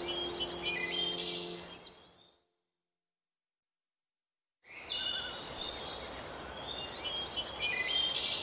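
Birdsong chirps over a steady hiss, mixed with held notes of soft background music that fade away in the first two seconds. All sound then cuts out completely for about two seconds before the chirping and hiss return.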